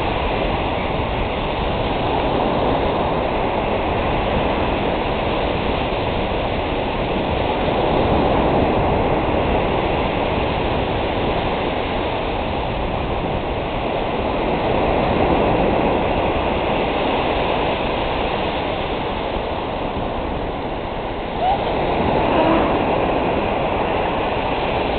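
Ocean surf breaking and washing up the beach: a continuous rush of water that swells louder a couple of times as waves come in.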